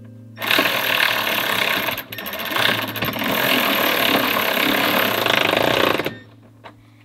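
Small cordless driver running under load as it drives a bolt home, fastening a drawer bracket to the base plate. It runs for about five and a half seconds, with a brief let-up about two seconds in, then stops sharply.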